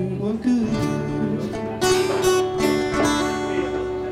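Two acoustic guitars playing live together, strumming chords that ring on, with no voice over them. The strums come more often after about two seconds in.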